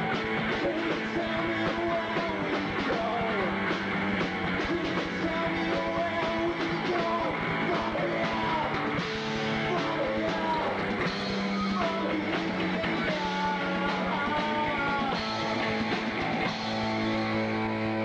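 A live rock band playing: a singer singing into a handheld microphone over electric guitar, bass guitar and drums.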